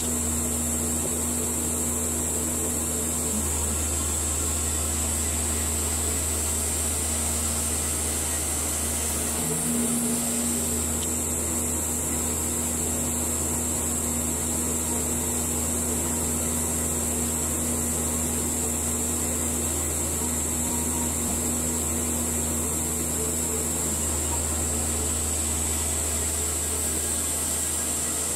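Baker 3665D portable bandsaw mill running steadily as its band blade saws through a log: a continuous drone with a strong high hiss over a low hum, shifting slightly in the low end a few times.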